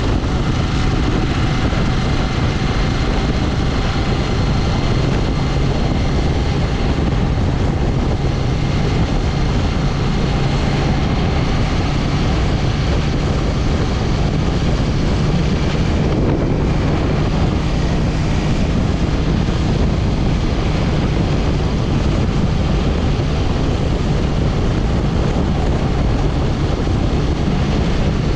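KTM 790 Duke's parallel-twin engine running at a steady cruise, its low hum mixed with wind rush over the microphone.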